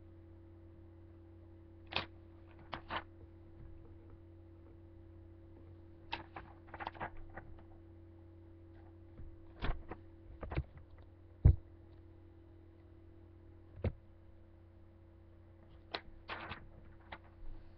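Handling of a sheet of paper and a pen close to the microphone: scattered clicks, knocks and short paper rustles, the loudest a single thump about two-thirds of the way through. A steady low hum runs underneath.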